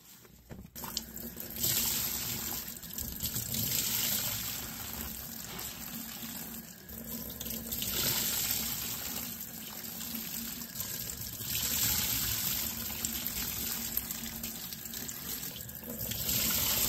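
Tap water running into a stainless steel sink while a soapy sponge is squeezed and rinsed under it. The splashing swells into louder, hissier gushes about five times as the sponge is pressed out. The running water starts about a second in.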